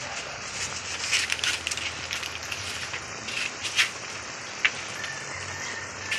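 A pan of coconut milk with beef and garlic cooking over a fire, with steady sizzling and crackling dotted with scattered sharp pops.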